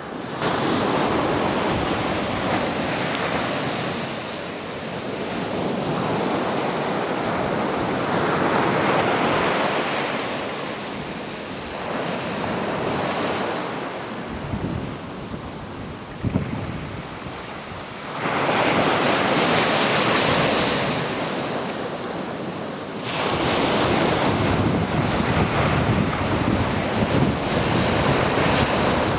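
Sea waves washing onto a beach, the rush swelling and easing every several seconds, with wind buffeting the microphone. A single brief knock about halfway through.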